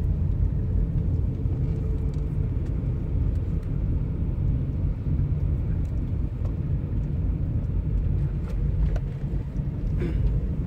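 Steady low rumble of a moving road vehicle.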